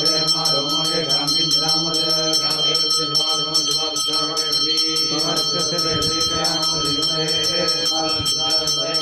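A puja bell rung steadily with quick clapper strokes, its ringing held without a break, over men's voices chanting mantras.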